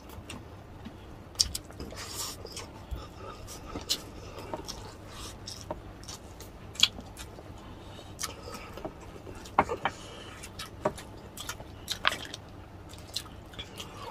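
Two people chewing pork humba and rice close to the microphone, eating by hand: scattered wet mouth clicks and lip smacks.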